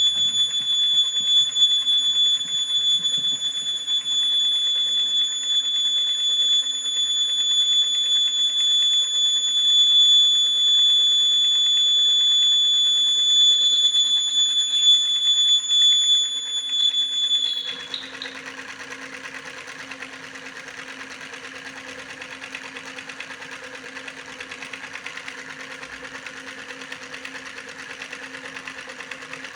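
A steady, high-pitched electronic buzzer tone over a small motor's whirr; the tone cuts off suddenly about eighteen seconds in, leaving the small motor whirring with a fast, even rattle.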